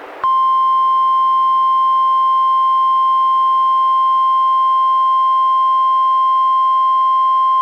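NOAA Weather Radio warning alarm tone, a single steady 1050 Hz tone sounded as part of a required monthly test. It starts about a quarter second in, after a moment of radio hiss, and holds at an unchanging level.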